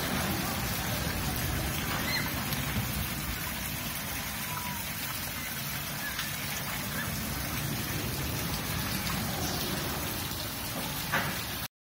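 Fountain water splashing steadily, like light rain, cutting off abruptly near the end.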